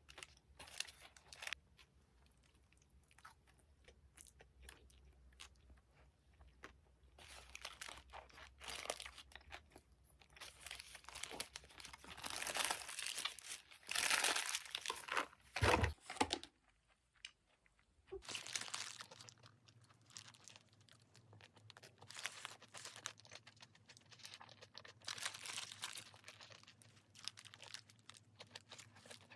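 Close-up eating sounds: crunching and chewing, with crinkling and tearing of packaging, loudest in a run of rustling bursts in the middle.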